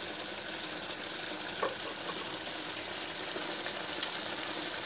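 Beef pieces sizzling steadily in ghee, rendered beef fat and tomato juices in a karahi, with a light click about four seconds in.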